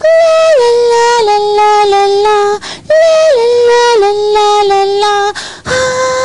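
A woman singing a wordless melodic line on her own: two phrases that each step down in pitch, then a long held note near the end.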